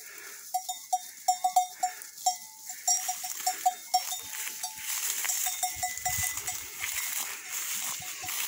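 Bells worn by a flock of sheep and goats clinking irregularly as the animals walk, many short ringing notes overlapping.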